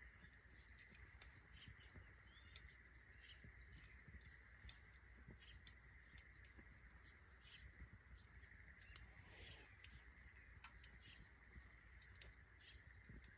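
Faint small birds chirping on and off, with scattered sharp crackles from a small wood fire, the loudest about two and a half, nine and twelve seconds in.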